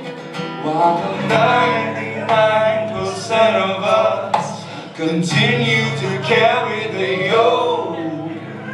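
Live music: a man singing with guitar accompaniment.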